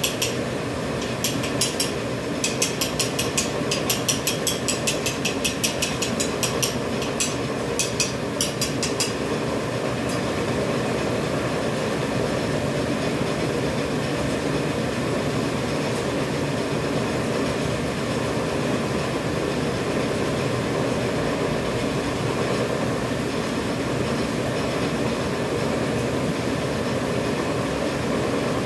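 Automatic dental mask-making machine running: fast regular clicking, about three clicks a second, for the first nine seconds, then a steady mechanical hum.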